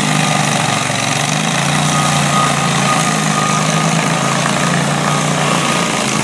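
Stump grinder engine running at a steady speed.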